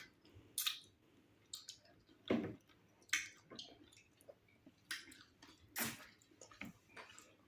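Wet chewing and mouth smacking of people eating fufu with slimy ogbono soup, in short separate bursts with quiet gaps between them.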